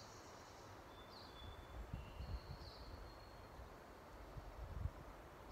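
Faint woodland ambience with a few short, thin, high bird chirps and some soft low thumps.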